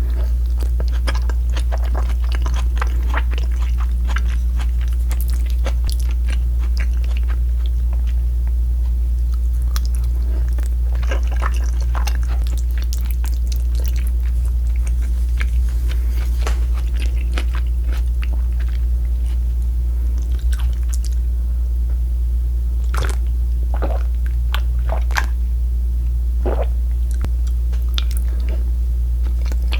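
Close-miked eating sounds: irregular chewing, biting and crunching of crispy fried pork, heard over a steady low hum.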